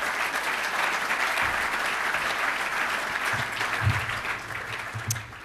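Audience applauding steadily, dying away near the end, with a few low thumps in the second half.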